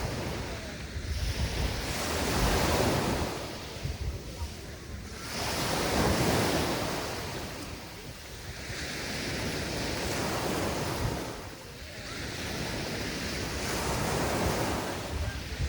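Sea waves breaking and washing up the beach, swelling and fading about every three to four seconds, with wind buffeting the microphone.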